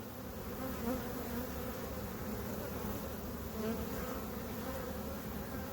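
Honey bees buzzing steadily from an open, packed nuc box, a dense swarm hum with a steady pitch. The colony is agitated, worked without smoke.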